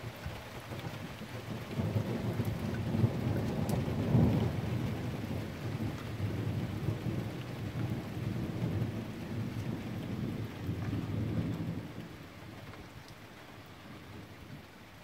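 Rolling thunder over steady rain. The low rumble builds about two seconds in, is strongest around four seconds, and fades out near twelve seconds, leaving the hiss of the rain.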